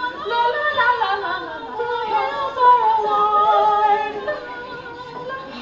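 Women singing in a stage number, the voices sliding between pitches and holding long notes in the middle.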